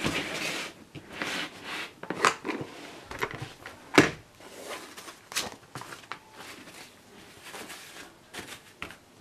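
Handling of a hard plastic pistol case: a scraping slide across the table at the start, then the case being opened, with sharp plastic clicks and knocks (the loudest about four seconds in) and softer rustling as the paper manual is lifted off the foam.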